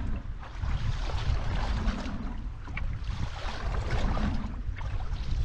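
Wind rumbling on the microphone over the rush and slosh of sea water around a small boat, the water noise swelling and fading every second or two.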